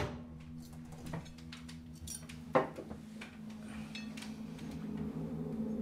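Dishes and cutlery clinking on a wooden table around a cup or bowl on a saucer, with one sharper clink about two and a half seconds in, over a low steady drone.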